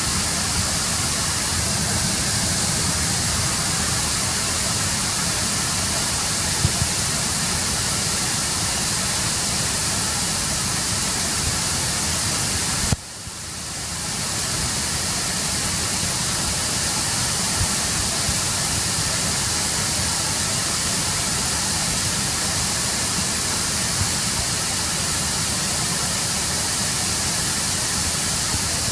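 Waterfall and river water rushing steadily. About thirteen seconds in, the sound drops away abruptly and swells back over about a second.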